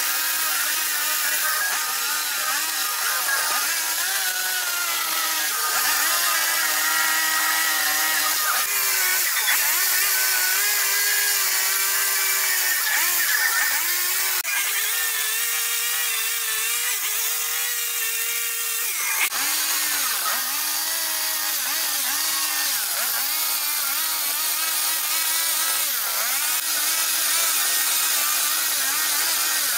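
Two-stroke Stihl chainsaw running at high revs while carving into a wooden post, its engine pitch dipping again and again as the chain bites into the wood and rising as it clears. For a few seconds in the middle it holds a higher, steadier pitch before the dips resume.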